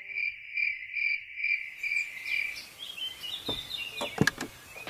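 Crickets chirping in a steady pulsing rhythm, about two chirps a second, giving way a little past halfway to birds chirping. Near the end come a couple of sharp knocks, the loudest about four seconds in.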